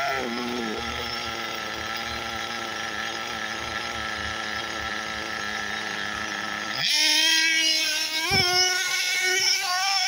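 .21 nitro engine in an RC buggy idling steadily while being warmed up, its high-speed needle being richened against a lean bog. About seven seconds in it revs up sharply and gets louder, the pitch climbing and wavering as the car drives off.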